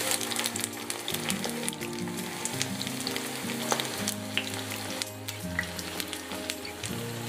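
Poha-potato cutlets shallow-frying in hot oil in a pan, a steady sizzle with many small crackles and pops as the oil bubbles around them.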